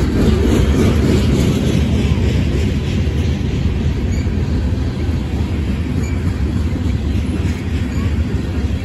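Manifest freight train rolling past, its covered hopper cars making a steady low rumble of steel wheels on the rails.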